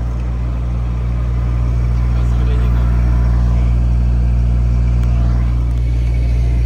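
A food truck's generator running with a steady low hum.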